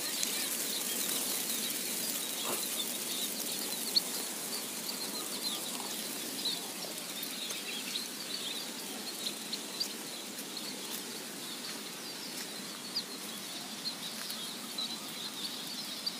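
Outdoor ambience: many faint, short chirps of small birds scattered over a steady high hiss, with a few sharp clicks, the loudest about four seconds in.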